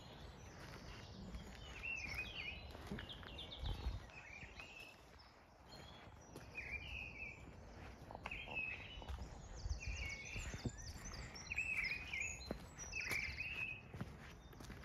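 Songbirds singing: short warbled phrases repeated every second or so, mixed with quick high trills. Underneath is a low rumble with a few soft thumps, like footsteps.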